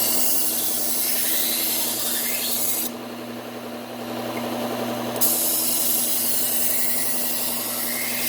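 Bucktool low-speed belt sander running with a 120-grit Cubitron belt as a Wusthof kitchen knife edge is ground on it. There are two grinding passes, each a loud scratchy rasp over the steady motor hum. The first ends about three seconds in and the second starts about five seconds in. This is the first, coarse grit that apexes the edge and raises a burr.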